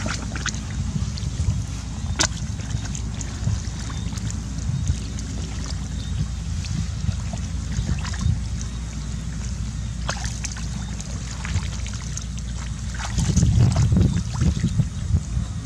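Hands digging and scooping through wet mud in shallow water, with a few faint splashes and clicks, over a steady low rumble that grows louder near the end.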